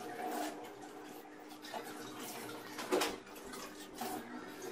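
A hand working flour, oil and warm water into pizza dough in a mixing bowl: soft wet squishing and rubbing, with a few light knocks against the bowl, the sharpest about three seconds in.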